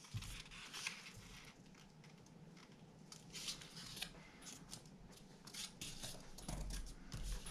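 Construction paper being folded and creased by hand: faint rustling and sliding with short scrapes and clicks as the corners are brought to the centre and pressed flat.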